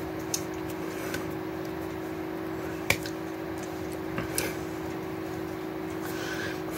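Steady hum from room equipment, broken by a few sharp taps and clicks from hands knocking together and against the chest while gesturing; the loudest tap comes about three seconds in, and two more follow close together a little past four seconds.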